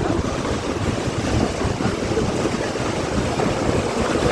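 Heavy monsoon rain with gusting wind: a steady, loud rushing noise with choppy buffeting at the low end.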